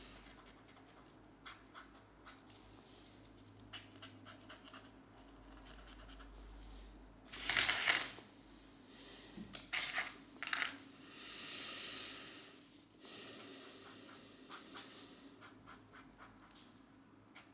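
Close-miked felt-tip markers stroking on colouring-book paper in short, soft scratchy strokes. About halfway through there is a louder cluster of sharp knocks and rustles, followed by a few more clicks.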